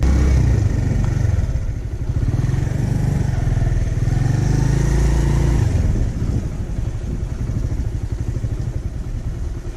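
Motorcycle engine running while being ridden, heard close up from the bike, its note rising and easing a little in the first few seconds before settling to a steady run.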